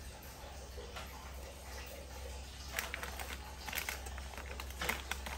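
Faint handling sounds at a snack: a plastic cookie wrapper crinkling and a few small clicks, with a small knock near the end, over a steady low hum.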